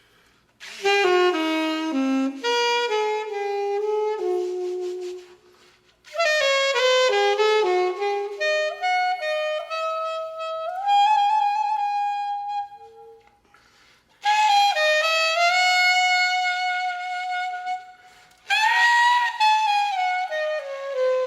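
Saxophone playing four slow phrases of falling runs, with brief pauses between them and a long held note in the second phrase; the notes ring on and overlap one another.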